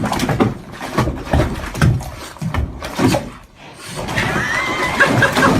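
Irregular knocks and scuffles, then an animal's wavering high-pitched call from about four seconds in.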